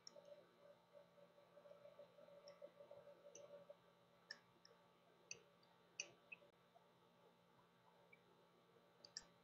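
Near silence: room tone with a dozen or so faint, scattered clicks from a stylus tapping on a tablet while writing.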